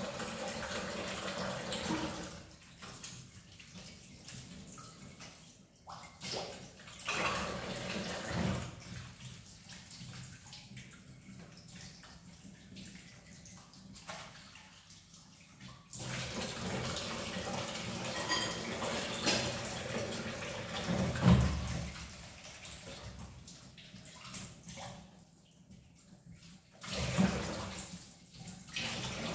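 Kitchen tap running into a sink while dishes are washed, the water on for a couple of seconds, off, then on again for several seconds from about halfway. Between the runs, dishes and cups clink and knock, with two louder knocks near the end.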